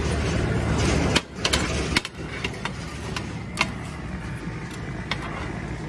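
Steel cleaver clattering and scraping on a steel shawarma tray in irregular knocks as spiced chicken, onion and tomato are turned and mixed before chopping. A low steady hum drops away about a second in.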